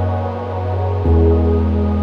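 Background music: slow ambient synth chords held steady, changing to a new chord about a second in.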